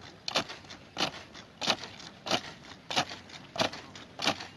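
A military drill squad striking in unison: seven sharp hits, evenly spaced at about three every two seconds, as the soldiers work through a precision drill sequence.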